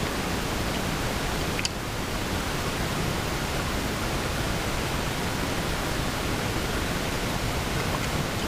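Steady, even hiss of background noise, with a brief dip and a faint click about two seconds in and a few faint ticks near the end.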